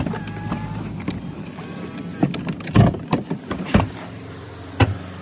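A car's engine hum cuts off about a second in, with a brief two-note electronic chime, followed by a series of clunks and thumps from doors opening and people climbing out of the vehicle.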